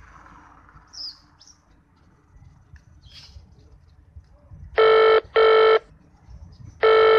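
Telephone ringback tone of an outgoing mobile-phone call: a buzzy double ring, heard twice about two seconds apart, the second pair near the end, while the call waits to be answered.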